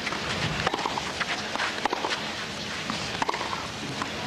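Tennis stadium crowd murmuring between points, with scattered short sharp taps.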